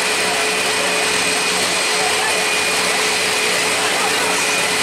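A machine running steadily and loudly: a constant rushing hiss with a few high fixed whines that never change pitch.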